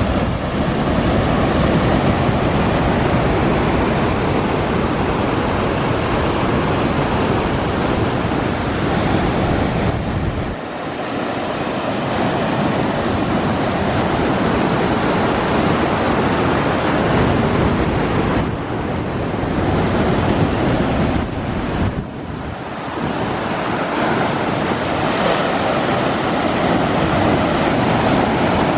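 Heavy typhoon surf breaking and washing onto the shore, with wind buffeting the microphone; the low wind rumble eases off briefly twice.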